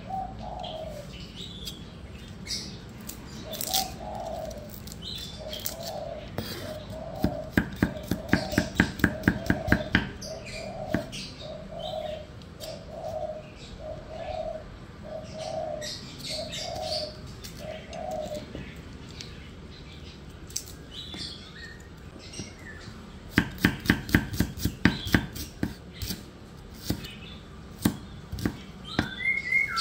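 A cleaver chopping through garlic and shallots onto a wooden chopping board in two quick runs of about four strokes a second, one about a third of the way in and one near the end. Through the first half a bird calls a steady series of short low coos, with higher chirps now and then.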